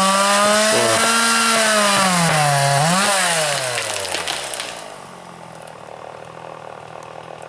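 Chainsaw running fast and high-pitched, its pitch dipping and rising once, then winding down and stopping about four and a half seconds in; faint ticks and rustles after.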